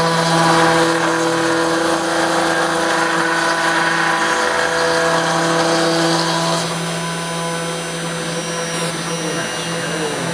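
Desktop CNC engraver's spindle turning a 1/8-inch solid carbide bit at about 8000 RPM, milling through aluminum plate: a steady machine hum with several held tones. About six and a half seconds in, one of the tones drops out and the sound gets a little quieter.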